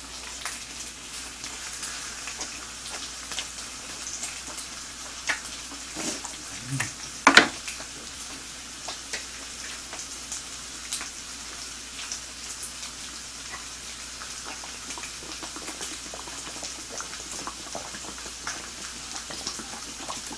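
Slices of pork belly sizzling on a griddle plate: a steady high hiss with scattered small pops. One sharp knock about seven seconds in is the loudest thing.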